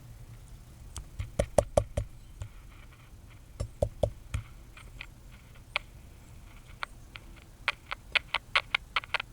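Small sharp clicks and taps of hands handling things at a workbench. They come in a cluster about a second in and another about four seconds in, then grow into a quick run of clicks near the end.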